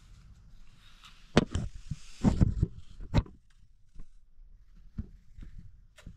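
Apples being peeled, cut and eaten with small knives over plates: scattered sharp clicks and knocks, most of them between about one and three seconds in, then a few lighter taps.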